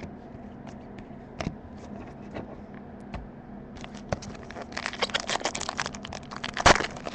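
Foil wrapper of a Panini Select basketball card pack being handled and torn open: a few small rustles and clicks at first, then dense crinkling in the second half with one sharp tear near the end, over a faint steady hum.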